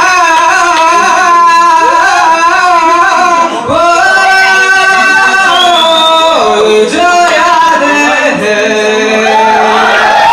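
A man singing a Hindi song live into a handheld microphone, the melody sung in long, held, gliding notes.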